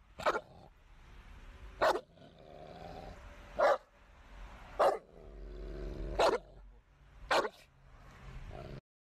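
A large bully-breed dog barking, six single loud barks about a second or more apart. The sound cuts off abruptly near the end.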